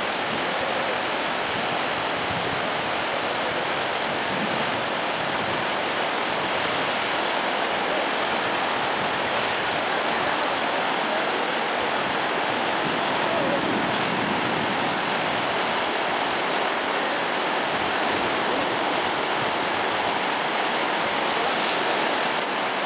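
Floodwater rushing and churning through breaches in an earthen road causeway, a steady, unbroken rush.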